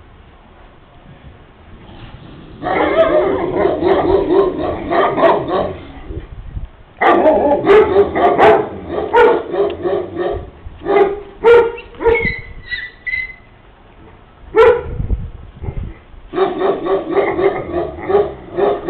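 Young Caucasian Shepherd dog barking in rapid bouts, three long runs of quick, repeated barks with a single loud bark between the second and third.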